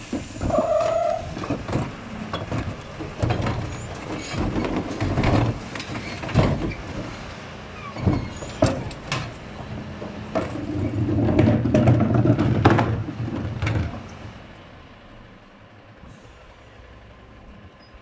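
Mercedes refuse truck's Zoeller rear bin lift emptying wheelie bins: plastic bins clatter and bang against the lift and hopper, then from about ten seconds in the hydraulics run loudly for a few seconds as the lift raises and tips a bin. After that the truck settles to a low engine rumble.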